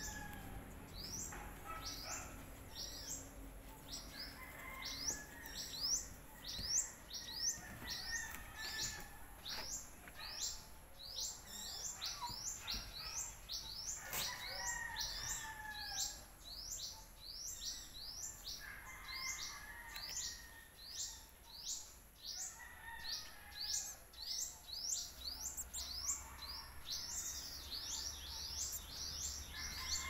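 Small birds chirping without a break: a fast string of short, high chirps, several a second, with some lower calls mixed in.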